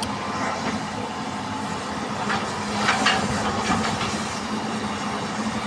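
Hitachi EX200 excavator's diesel engine running steadily with a constant low hum while it loads soil into a dump truck, with a couple of short louder rushing surges about two and three seconds in.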